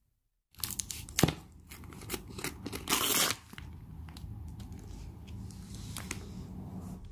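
Plastic wrapping on a block of Gruyère cheese crinkling and tearing in a few crackly bursts, loudest about a second in and again around three seconds in, as a knife cuts a slice from the block. A low steady hum follows.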